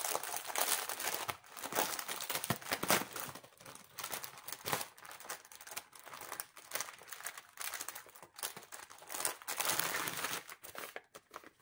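Plastic packaging of a diamond painting canvas crinkling and rustling in irregular bursts as the canvas is handled. The rustles thin out near the end.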